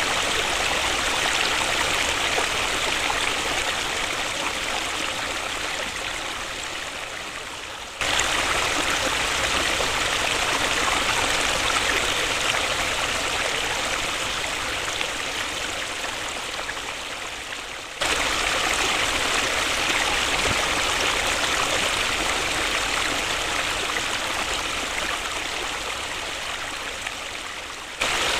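Waterfall: a steady rush of falling water. The level sags slowly and then jumps sharply back up about every ten seconds, where the recording is cut or looped.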